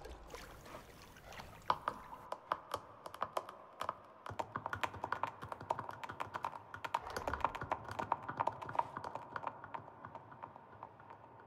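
Giraffe hooves tapping on a hard tiled floor as several giraffes walk off: a dense, irregular run of sharp clicks that starts about two seconds in and thins out near the end.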